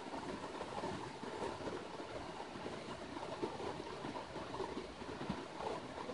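Shallow, rocky river running over stones: a steady rush and babble of flowing water.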